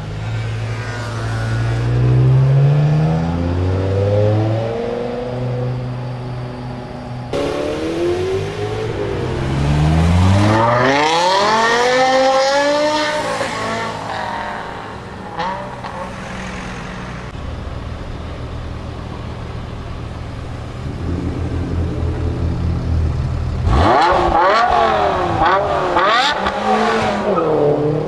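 BMW M5 E60's 5.0-litre naturally aspirated S85 V10 exhaust, accelerating hard in several separate passes, its pitch climbing steeply through the revs. Near the end come quick revs rising and falling.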